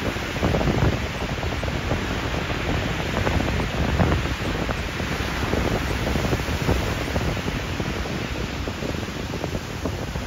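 Storm waves crashing against a concrete harbour wall and breaking onto a shingle beach in a continuous roar of surf, with wind rumbling on the microphone.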